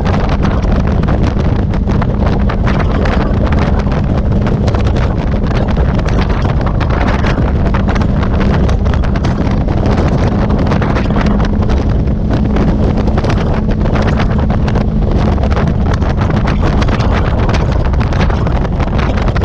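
Wind buffeting the microphone on a moving motorcycle, over the steady hum of the engine running at a constant cruising speed.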